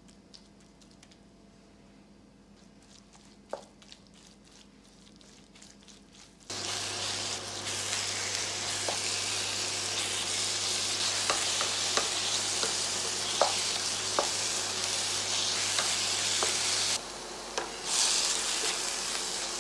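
Grated apple frying in melted ghee in a non-stick pan, sizzling while a spatula stirs and scrapes it with scattered clicks. The first six seconds or so are faint. Then the loud sizzle starts suddenly, with a low hum under it for about ten seconds.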